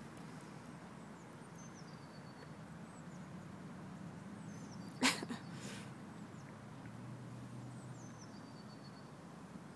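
Faint, distant bird chirps, a few thin falling notes, over a low steady hum, with one short dog sound about five seconds in.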